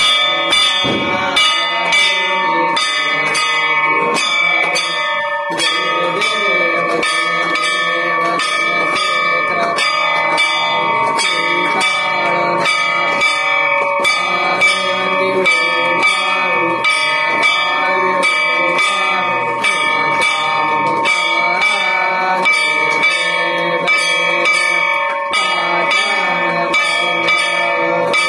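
Hanging metal temple gong struck again and again with a stick in a steady, even rhythm, its ringing carrying on between strokes.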